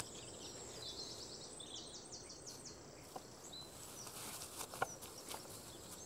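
Faint woodland ambience: quick series of high chirping calls and a thin steady high whine, with a couple of light snaps about three and five seconds in.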